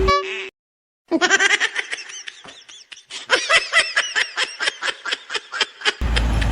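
High-pitched giggling laughter in quick repeated bursts. It starts about a second in after a brief tone and a moment of silence, and cuts off suddenly near the end.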